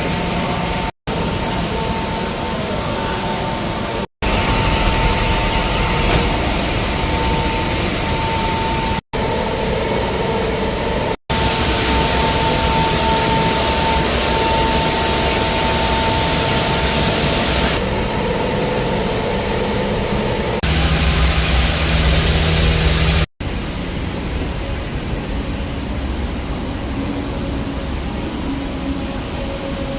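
Loud, steady machine noise with a hiss and a faint steady whine. It breaks off sharply for an instant several times, and its character shifts at each break.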